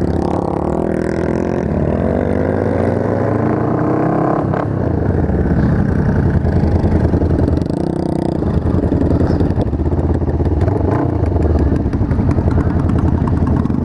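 Motorcycle engine heard from the rider's seat, pulling away with its pitch rising over the first few seconds, dropping about four and a half seconds in, then running on steadily at road speed among other motorcycles in a group.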